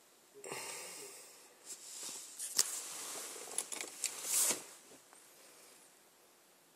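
Handling noise: irregular rustling and scraping with a few sharp clicks for about four seconds, then low room tone.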